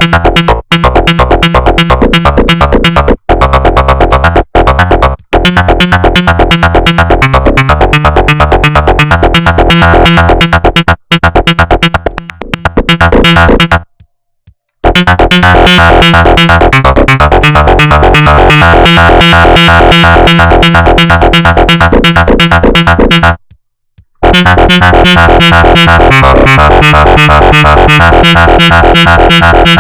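Make Noise 0-Coast synthesizer playing a loud, fast arpeggiated pattern of rapidly repeated notes. The sound cuts out completely for about a second around the middle, and again briefly later on.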